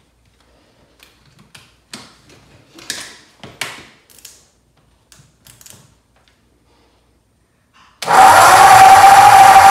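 Faint clicks and rattles of battery cable clamps being handled. About eight seconds in, the 6-volt starter of a rebuilt Ford flathead V8-60 begins cranking the engine, a sudden loud steady whine over a low rumble.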